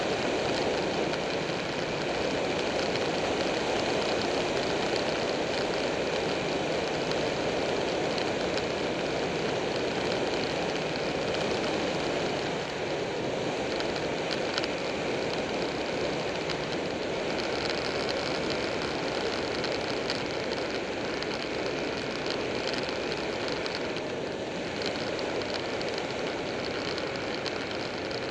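Buell 1125R motorcycle's 1125 cc V-twin engine running at a steady cruise, mixed with wind rush and tyre noise, heard from a camera mounted on the bike.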